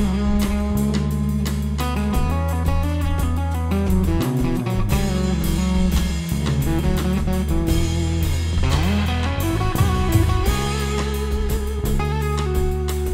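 Funk jam band playing an instrumental passage live: electric guitar over a steady bass line and drum kit, with a sliding note about nine seconds in.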